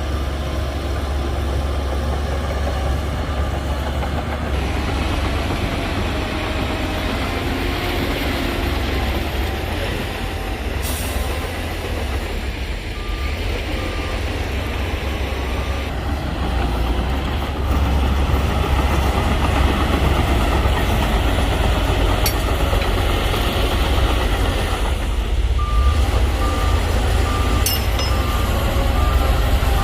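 Heavy earthmoving machinery (bulldozer and dump truck) running with a deep engine rumble that grows louder partway through. A reversing alarm beeps in evenly spaced series near the start, midway and again near the end.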